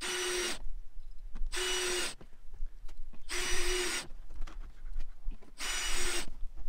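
Cordless drill driving screws into a plastic feeder in four short bursts of about half a second each, each burst a steady motor whine.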